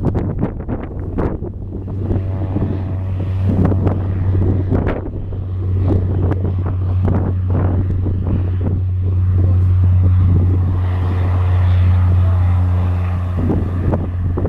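Cessna 208 Caravan's Pratt & Whitney PT6A turboprop and propeller running with a steady low drone, with wind buffeting the microphone in irregular gusts.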